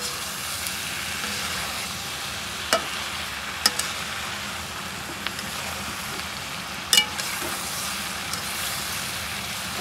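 Mixed vegetables sizzling as they fry in a kadhai, with a metal spatula scraping through them. The spatula knocks sharply against the pan a few times, around three and seven seconds in.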